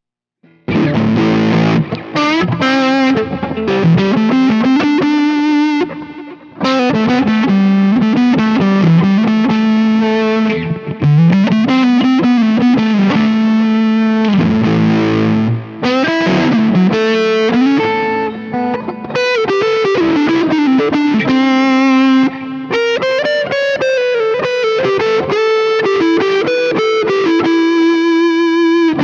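Electric guitar played through the Neural DSP Mesa Boogie Mark IIC+ amp-model plugin, a distorted lead with string bends, slides and vibrato on sustained notes. It starts about half a second in.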